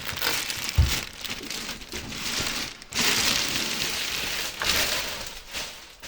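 Plastic packaging crinkling and rustling as a new computer case is pulled out of its box and unwrapped, with one low thump about a second in.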